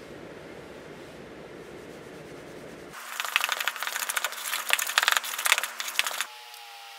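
A paper towel rubbed softly over buttercream icing, then, about three seconds in, a spoon scraping and clacking rapidly against a plastic bowl as buttercream is stirred, for about three seconds.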